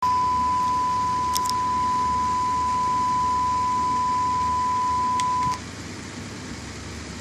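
Steady 1 kHz sine test tone, the usual reference signal for driving and calibrating VU meters, holding one pitch and then cutting off suddenly about five and a half seconds in. A few faint clicks come near the start and just before it stops.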